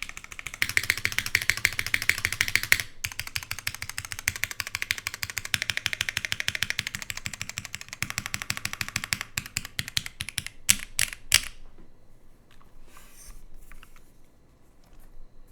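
Fast typing on a Flybeck Khora65 custom mechanical keyboard with lubed, filmed Cherry MX1A Nixie switches on a nylon plate under GMK Sloth keycaps: a rapid, even run of keystrokes with a brief break about three seconds in. It ends with a few louder single strokes and stops about eleven and a half seconds in.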